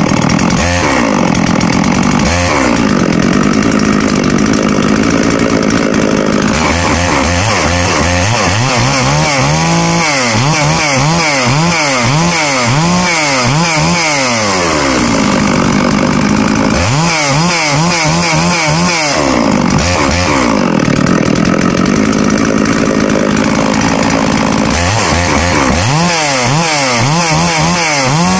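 Holzfforma G660 chainsaw, a Stihl 066 clone with a two-stroke engine, running without cutting, its revs rising and falling over and over with a few stretches held high. The saw is new out of the box and its carburettor has not been adjusted.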